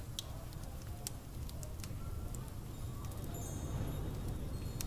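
Layered indoor room ambience: a steady low rumble with scattered light clicks and faint, indistinct background chatter.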